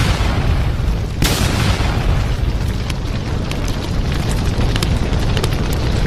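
Explosion blasts: one hits just as the sound begins and a second about a second in, followed by a steady heavy rumble with scattered sharp cracks.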